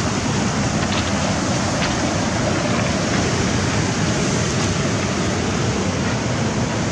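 Steady wash of sea surf mixed with wind noise, an even rushing with no distinct events.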